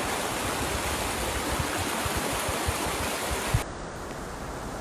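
Steady rushing noise with scattered low rumbles and knocks, the field sound of an active lava flow on Mount Etna. About three and a half seconds in it cuts to a quieter, duller hiss.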